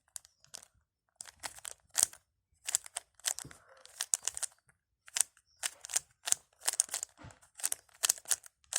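3x3 Rubik's cube being turned quickly during a solve, its plastic layers clicking and clacking in irregular runs of several turns a second with short pauses between.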